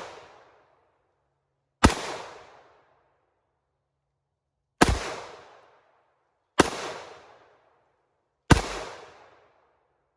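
Four single gunshots, spaced about two to three seconds apart, each followed by a short echoing tail that dies away within about a second.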